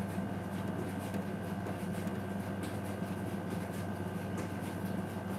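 Steady low room hum with a faint high tone, and a few faint soft taps of sneakers landing on a tile floor during jumping jacks.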